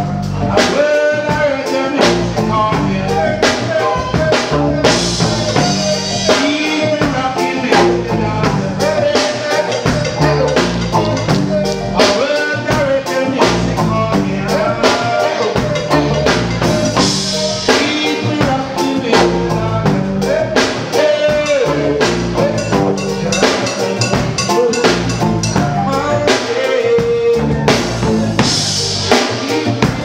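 Live reggae band playing: a drum kit with rimshots and bass drum keeping a steady beat under a stepping bass line, with melody lines over the top.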